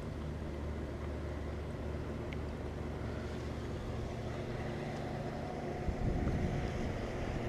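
Motorboat engine running with a steady low drone as the boat passes on the water. Wind buffets the microphone near the end.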